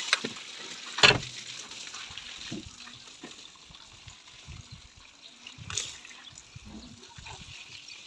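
Water from a garden hose spraying and splashing onto a backhoe loader's cab and bodywork, a steady hiss, with a loud knock about a second in and a smaller one near six seconds.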